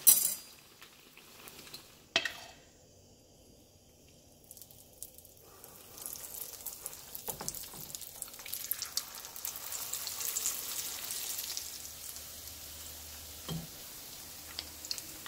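Hot oil sizzling in a frying pan as egg foo young batter fries. There is a sharp knock at the start and another about two seconds in. The sizzle swells again from about six seconds in as a ladleful of egg, bean sprout and shrimp batter goes into the oil, then settles.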